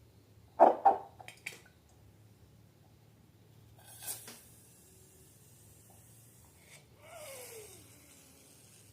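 Balloons and slime being handled close to the microphone: two loud squishy knocks about half a second in, then a few light clicks, a brief hiss around four seconds, and near the end a hiss with a squeak that falls in pitch.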